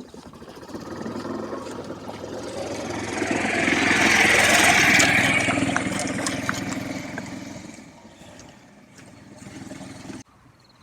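A motor vehicle's engine passing by: the sound swells to a peak about halfway through and fades away, then cuts off suddenly near the end.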